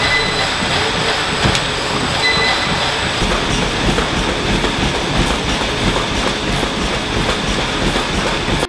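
Footfalls of a runner thudding on a treadmill belt over the treadmill's steady running noise, with two short beeps about two seconds apart near the start.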